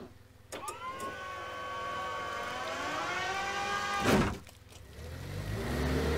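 A long held wailing cry of several steady tones lasts about three seconds. A brief loud burst follows about four seconds in, then a forklift engine starts running, rising in pitch near the end.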